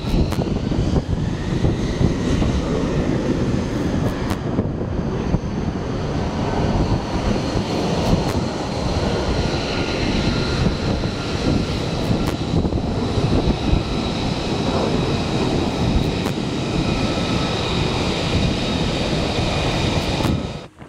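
F-35C Lightning II's jet engine running on the carrier deck as the jet taxis after an arrested landing: a loud, steady rush of jet noise with a high whine over it.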